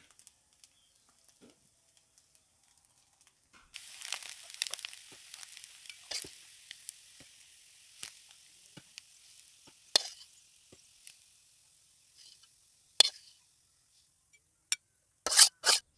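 Freshly fried bitter gourd, potato and fish roe sizzling in a hot iron kadai while a steel spatula scrapes it out onto a plate, with metal scraping and clicking against the pan from about four seconds in. A few loud, sharp knocks of metal near the end.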